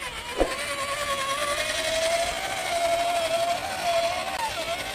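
A Traxxas TRX-4 RC crawler's brushed electric motor and geared drivetrain whining, the pitch wandering up and down with the throttle. About half a second in, there is a quick drop in pitch with a knock.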